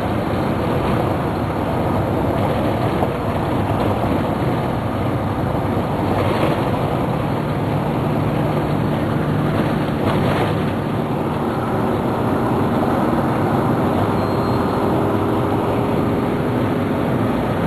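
Steady rushing noise of a large waterfall's cascading water, with a faint steady low hum underneath.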